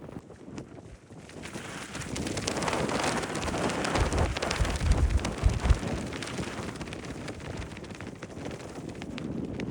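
Wind gusting across the microphone, building to heavy buffeting rumbles about four to six seconds in, then easing off.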